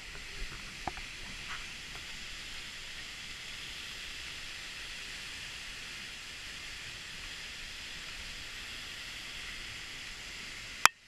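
Seljalandsfoss waterfall's falling water, heard as a steady hiss, with a few light clicks in the first two seconds and a single sharp click near the end.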